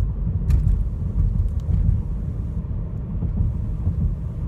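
Steady low rumble, with a light click about half a second in.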